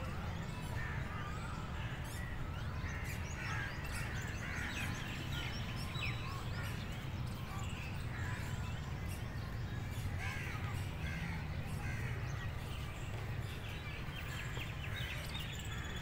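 Outdoor ambience of many small birds chirping and calling in short, overlapping notes over a steady low rumble.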